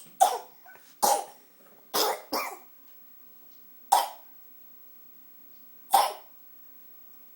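A six-month-old baby's short coughs, six of them at uneven gaps of about half a second to two seconds. The baby is faking the cough to get attention.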